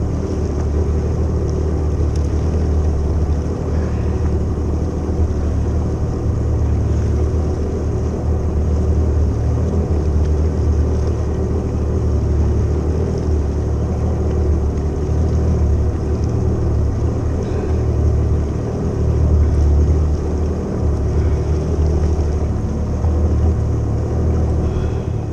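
Jet ski engine idling with a steady low rumble, mixed with water and wind noise on the ski-mounted microphone.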